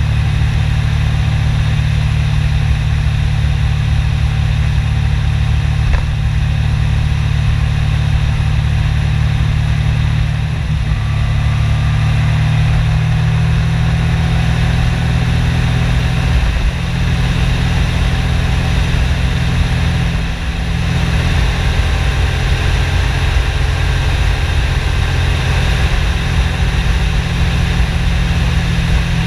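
Yamaha MT-09 Tracer's three-cylinder engine running steadily at road speed, with a heavy low rumble of wind on the camera microphone.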